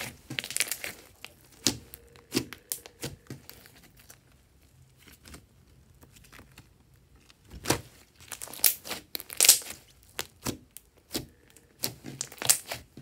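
Clear glitter slime mixed with small beads being squeezed, pressed and stretched by hand: sticky crackling and popping clicks. The clicks are dense for the first few seconds, go quiet for a few seconds in the middle while the slime is pulled and stretched, then come back dense near the end.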